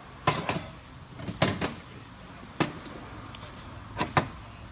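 A series of sharp knocks and clatters, mostly in quick pairs, as fuel filter housing parts are handled and set down on a workbench.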